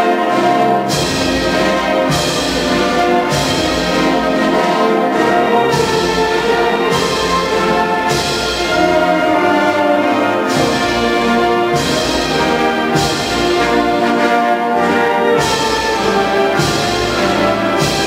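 Spanish wind band playing a slow processional march: clarinets, saxophones and brass in full harmony over a slow, regular percussion beat about once every second and a bit.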